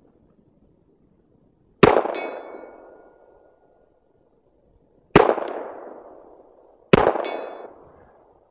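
Three pistol shots from a Springfield Armory 1911 TRP in .45 ACP: one about two seconds in, then two more close together near the end. After the first and third shots a high ringing follows, typical of a steel target plate being hit at 70 yards.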